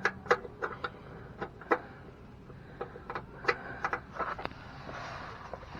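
Irregular clicks and knocks of metal hardware being handled while step-rail bracket bolts are started by hand under a pickup truck.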